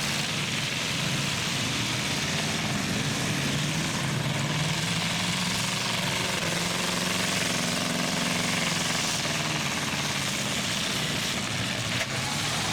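Engines of demolition derby trucks and SUVs running together, a steady noisy mix with low engine tones that rise and fall a little, and a brief click near the end.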